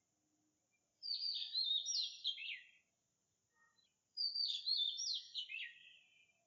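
Magpie calling: two warbling phrases, about a second and four seconds in, each a run of quick notes that falls in pitch over nearly two seconds.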